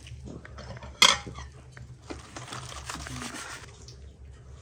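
Knife carving a roasted beef leg on aluminium foil, with a sharp knock about a second in and then a couple of seconds of crinkling and scraping as the meat is cut and lifted.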